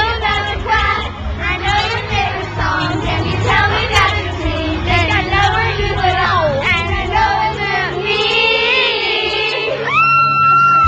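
A group of young girls singing along loudly together, close up, with music playing underneath. Near the end they break into one long, high-pitched held cry.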